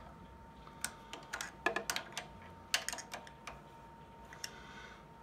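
Light metal clicks and taps from a wrench snugging the nut that holds a change gear on a mini lathe's gear train, with the gears' teeth clicking as they shift. The clicks come irregularly, thickest between one and three seconds in, with a last one or two later.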